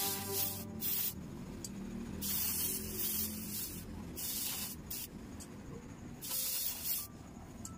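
Airbrush spraying paint onto a small plastic model-kit part in several short bursts of hiss, the trigger pressed and released again and again; the longest burst lasts about a second.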